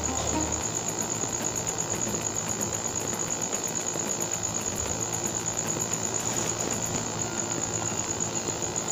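A cricket chirping in an unbroken run of fast, even, high-pitched pulses.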